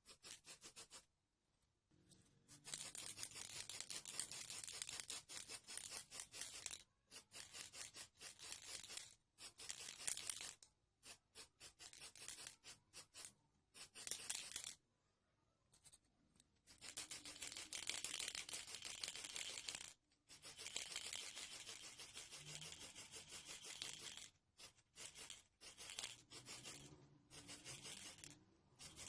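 Rapid, abrasive rubbing strokes on a small part, coming in bouts of a few seconds with brief pauses between them.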